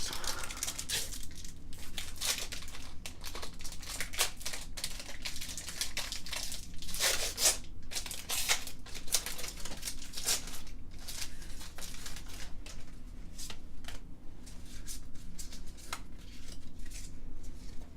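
Pokémon card booster pack packaging being torn open and crinkled, with irregular crackles and rips.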